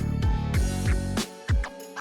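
Background music with a steady beat: kick drum and deep bass on every beat, with sharp percussion hits between.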